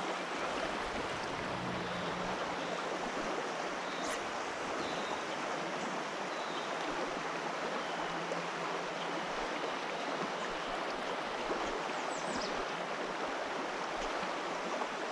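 Steady rush of a creek's current, an even wash of running water.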